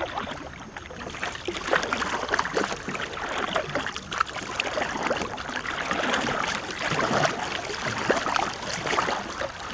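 Water splashing and sloshing around a canoe, in irregular bursts.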